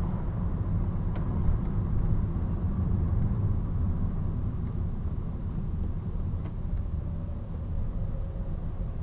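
Car driving slowly on a town road, heard from inside the cabin: a steady low rumble of engine and tyres, with a couple of faint ticks.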